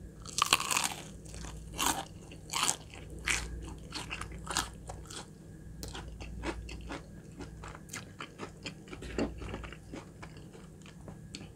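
A bite into a crispy Popeyes fried chicken nugget, with a loud crunch about half a second in, followed by steady crunchy chewing that grows softer toward the end.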